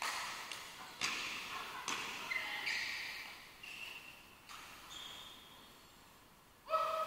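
Badminton rally: sharp cracks of racket strings hitting the shuttlecock, echoing in a large hall, mixed with short high squeaks of court shoes on the floor.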